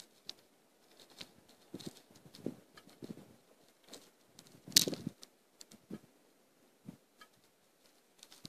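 Irregular clicks, knocks and rustling from hands working on a bore head's pipe fittings, with one louder knock about five seconds in.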